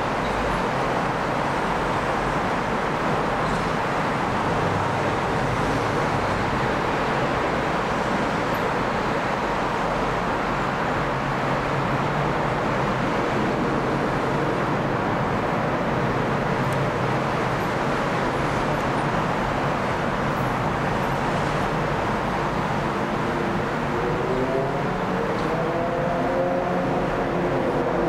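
Steady roar of an Airbus A350-941 jet airliner's engines on approach, with a whining tone rising in pitch over the last few seconds as it nears.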